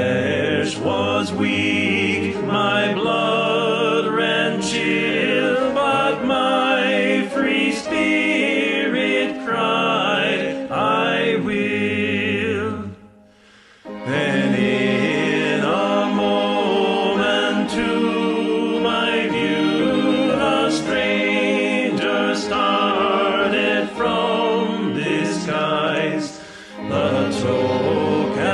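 Choir singing a hymn. The singing breaks off briefly about 13 seconds in, then carries on.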